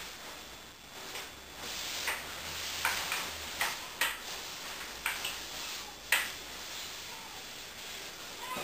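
Clothing rustling as skirt and cardigan fabric are smoothed by hand, with a handful of light, irregularly spaced clicks and taps, the loudest about six seconds in.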